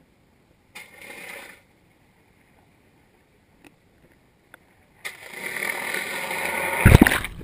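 Handling noise from a covered action camera: a short rustle about a second in, a few faint clicks, then a longer rubbing noise that builds up and ends in a couple of loud knocks near the end.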